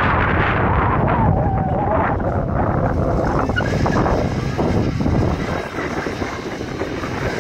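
A Toyota RAV4's engine running as the two-wheel-drive SUV crawls over slickrock, under heavy wind buffeting on the microphone.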